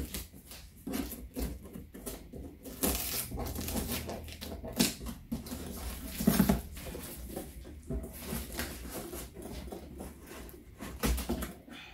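Scissors cutting open packing tape on a cardboard box: irregular scraping and crackling strokes of the blades against the tape and cardboard.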